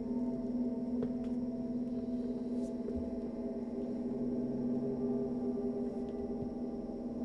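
A steady musical drone of several held tones, unchanging in pitch and level, with a gong-like ring.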